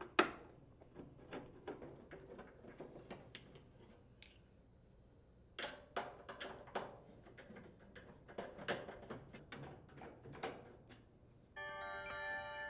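Small screws being unthreaded from a dryer's sheet-metal blower cover with a nut driver: irregular light clicks and metal taps in two spells, with a short lull about four and a half seconds in. About a second before the end, a bright, ringing chime-like tone of several notes comes in and holds.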